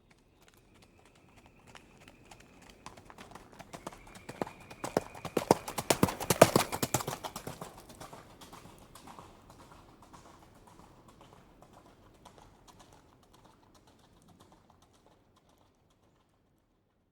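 Horse hooves clip-clopping at a walk, getting louder to a peak about six seconds in and then fading away, as a horse approaches and moves off.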